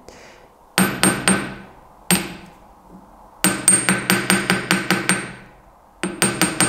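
Small hammer tapping a brass wire element on a steel bench block: light metallic taps with a ringing tone, in short runs. There are a few taps, then a single one, then a quick run of about ten, then a few more near the end. The light blows flatten the wire's curve to set its shape.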